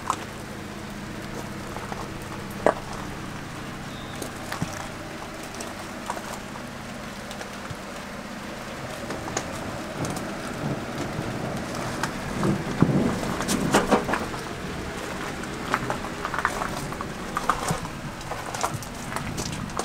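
Footsteps crunching on wet gravel over a steady patter of light rain, with a cluster of louder crunches about two-thirds of the way through. A low hum stops about four seconds in.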